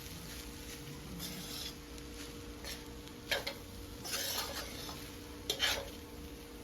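Fried rice being stirred in a pan, a spoon scraping through the rice in a few short strokes over a light sizzle, with a steady faint hum underneath.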